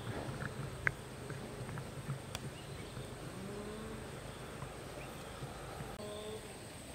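Hen crouched in a dirt hole giving soft, low clucking calls, some gliding up and down, with a few small clicks, over a faint steady high hum.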